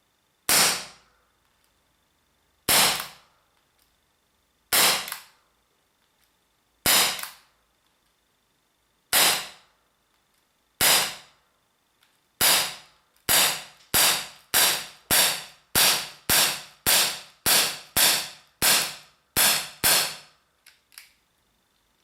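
CZ P-07 replica CO2 blowback BB pistol on a fresh 12-gram capsule, firing about twenty sharp shots. The first six come roughly two seconds apart, then a rapid string at almost two a second follows. A couple of faint clicks come after the last shot.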